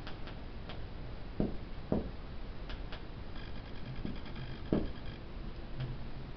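Dry-erase marker writing on a whiteboard: scattered light taps and scratchy strokes of the felt tip on the board.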